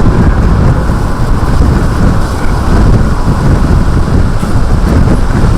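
Strong wind buffeting the microphone near a tornado, a loud, steady low rumble.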